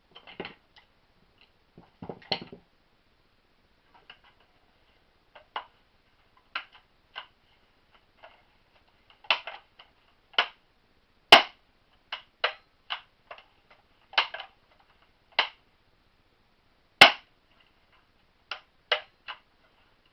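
Irregular clicks and knocks of metal parts being handled and fitted during reassembly of a Winchester 1977XS air pistol, with two much sharper snaps, one about eleven seconds in and one about seventeen seconds in.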